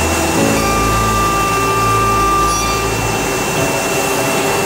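CNC router carving wood panels: a steady high spindle whine over a vacuum-like rush, with lower machine tones shifting in pitch every second or so as the head moves.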